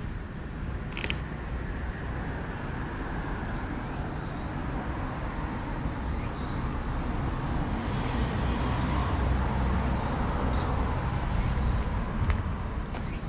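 Road traffic passing: a steady rumble of tyres and engines that swells through the middle and eases near the end, with a few faint clicks.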